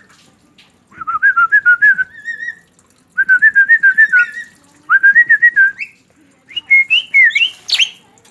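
Javan myna whistling four warbling phrases, each a quick wobbling trill about a second long, the last pitched higher and more broken, with a sharp click near the end.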